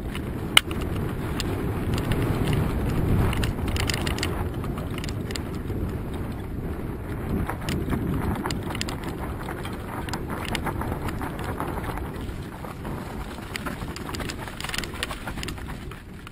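Wind rushing over the microphone while a mountain bike rolls fast down a dirt and grass trail, with frequent rattles and knocks from the bike over bumps. One sharp knock about half a second in.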